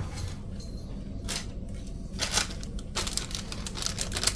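Small plastic parts bag crinkling as it is handled: a couple of separate rustles, then a dense run of crackling from about three seconds in.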